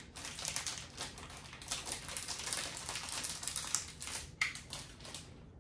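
Plastic bag crinkling and rustling in a quick run of small crackles as a portable heat sealer is slid along its open edge to seal it shut.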